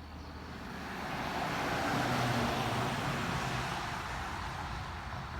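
A car driving past: tyre and engine noise swells to its loudest about two seconds in, then fades away.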